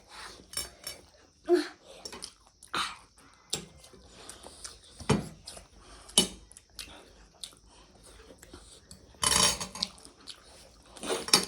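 Eating utensils clinking and scraping against plates and bowls during a meal, in scattered sharp clicks, with a longer, louder scraping stretch about nine seconds in.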